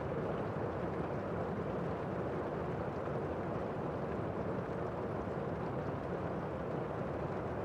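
Steady rain falling: an even rushing noise with no thunder.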